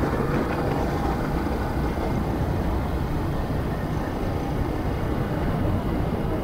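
Motorcycle riding at a steady, moderate speed, heard from a handlebar-mounted camera: an even rush of wind and road noise over the running engine, with no change in pace.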